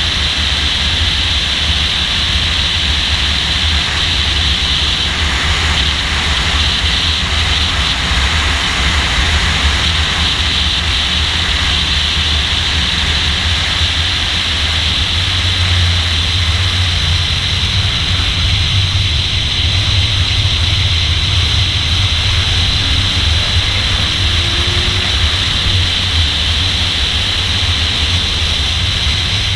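A car's engine pulling hard at track speed, with heavy wind and road rush over it. The sound stays steady, and the engine note shifts a little about halfway through.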